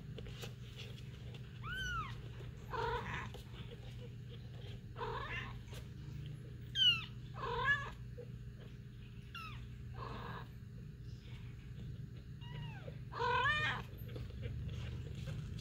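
Young kittens mewing: about ten short, high, thin cries that rise and fall in pitch, spaced a second or two apart, the loudest about seven seconds in and again near the end.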